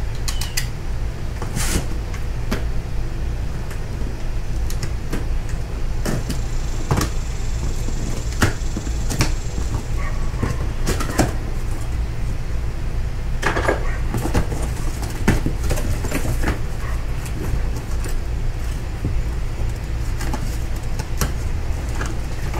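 Scattered clicks, knocks and rustles of hands working at a cardboard trolley-jack box and handling a metal tool, over a steady low rumble.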